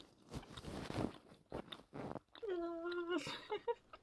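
Crinkly rustling of a long synthetic ponytail hairpiece being handled and shaken close to the microphone. About halfway through, a voice holds one note for about a second, then breaks off.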